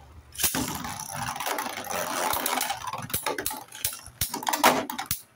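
Two spinning-top Beyblades, one of them 3D-printed, are launched into a hard plastic stadium about half a second in. They spin and grind across the plastic floor with a steady scraping rattle and repeated sharp clacks as they collide. The loudest clash comes near the end, and then the noise stops suddenly.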